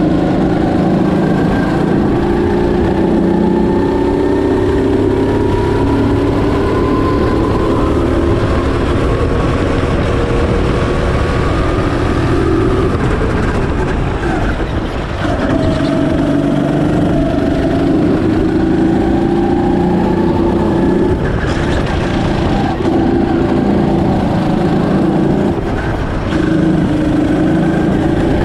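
Birel N35 go-kart's engine running under the rider, its pitch climbing along the straights and dropping briefly as the kart slows for corners, once about halfway through and again near the end.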